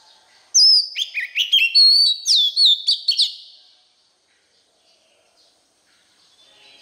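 Oriental magpie-robin singing one loud phrase of about three seconds: clear whistled notes with quick rising and falling slurs, starting about half a second in.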